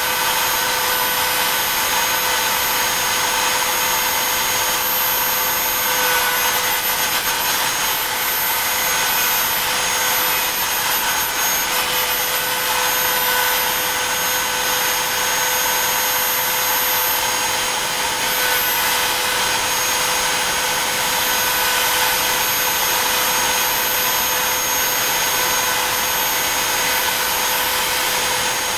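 Router spindle of a BobsCNC E3 desktop CNC machine running steadily as its V-bit carves star shapes into wood: a steady high-pitched whine over a constant hiss of cutting.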